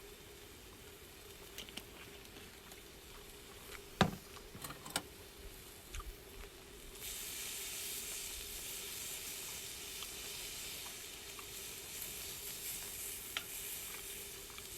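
Meat sizzling as it cooks, with a few sharp clicks of a cooking utensil about four and five seconds in; the sizzling grows louder about halfway through, as if more meat goes on the hot surface.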